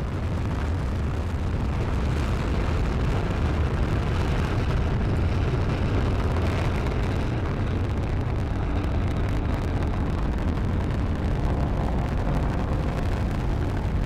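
Falcon 9 first stage's nine Merlin 1D rocket engines at full thrust seconds after liftoff: a deep, steady rumble that grows louder over the first couple of seconds.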